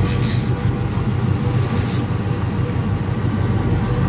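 Jet boat's engine running steadily, a low even rumble.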